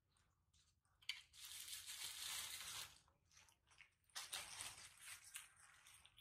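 Soft rustling of cloth, in two stretches of a couple of seconds each, as a baby monkey in a shiny dress is held and shifted in someone's arms.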